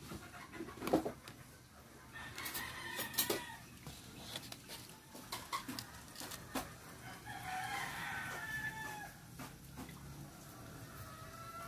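Chickens calling in the background, with one longer drawn-out call, likely a rooster's crow, a little past the middle. Scattered sharp clicks and taps throughout.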